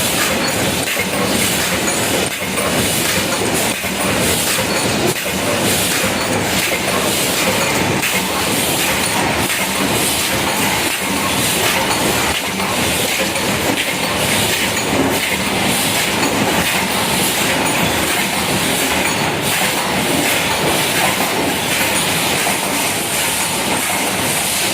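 JBZ-500 paper plate making machine running at production speed: a steady mechanical clatter with hiss, and faint knocks every second or so.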